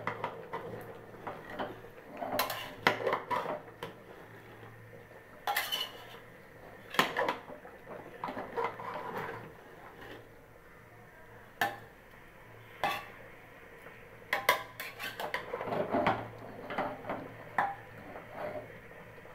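A metal spoon clanking and scraping against the inside of a metal pressure cooker as the contents are stirred: irregular clinks, some sharp and loud, with scrapes and short pauses between.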